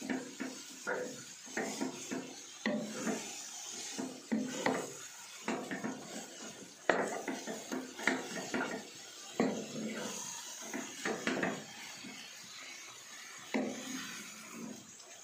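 A spatula stirring and turning stir-fried rice vermicelli and shredded vegetables in a speckled coated frying pan: irregular scrapes and soft knocks against the pan, with one sharper knock about seven seconds in.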